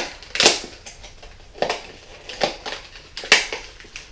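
Plastic fishing-lure packaging crackling and snapping as it is pried open by hand, in several sharp bursts about a second apart.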